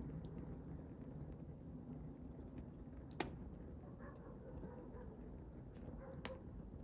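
Wood fire burning in a fireplace: a faint, low steady rumble with small crackles, and two sharp pops of the burning wood, one about three seconds in and one near the end.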